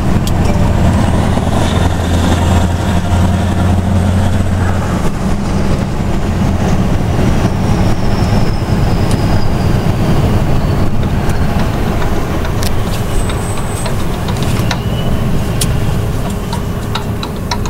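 Scania V8 truck engine running under way with its side-pipe exhaust: a deep steady drone for about five seconds, then a rougher, less even rumble.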